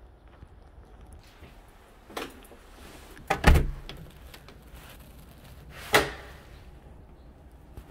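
House front door being opened and shut: a click about two seconds in, the loudest knock with a low thud about three and a half seconds in, and another sharp knock near six seconds.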